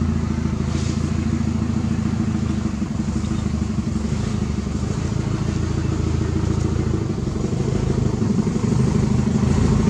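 A small engine running steadily, getting somewhat louder near the end.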